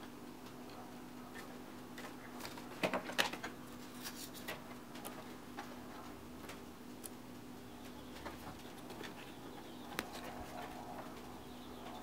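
Scattered light clicks and taps of plastic fan cables and a plastic Corsair hub being handled against a PC case panel, with a louder cluster of clicks about three seconds in.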